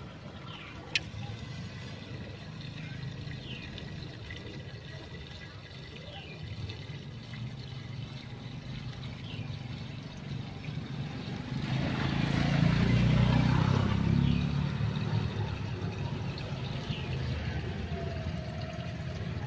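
Water swirling down a toilet bowl's drain in a vortex, the flow swelling to its loudest about twelve seconds in as the bowl empties.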